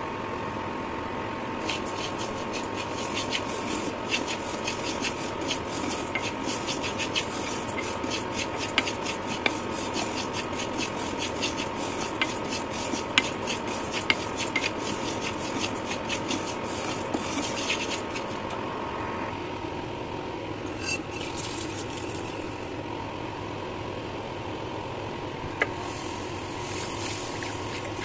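Wooden spatula stirring dry moong dal as it roasts in a nonstick pan: a dense rustle of small clicks as the lentils scrape and tumble. The clicks are busiest through the first two-thirds, then thin out, over a steady hum.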